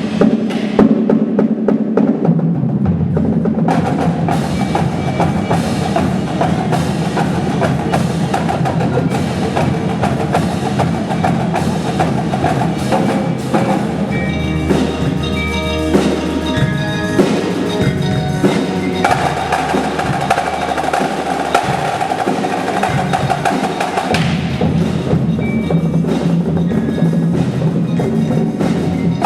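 Indoor drumline (winter percussion ensemble) playing: rapid drum strikes throughout, with the front ensemble's pitched mallet percussion (marimba and bells) sounding over it, most clearly in the middle.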